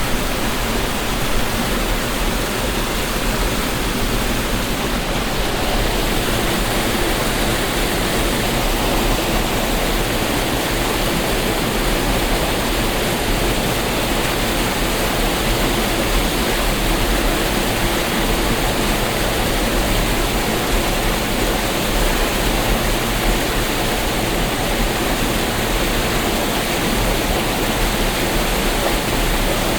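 Waterfall: falling water running with a loud, steady rush.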